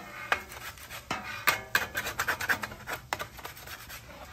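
A hand-held scrubber rasping back and forth over metal spatulas lying on a wet, steaming griddle, in quick irregular scraping strokes several times a second. The steam is loosening the stuck-on sugary sauce.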